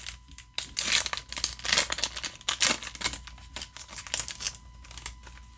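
Yu-Gi-Oh booster pack's foil wrapper crinkling in irregular crackles as it is handled and torn open by hand.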